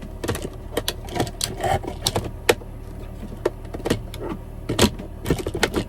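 Irregular light clicks and knocks, about a dozen, from objects being handled, over a steady low hum. The sharpest come about two and a half seconds in and near the end.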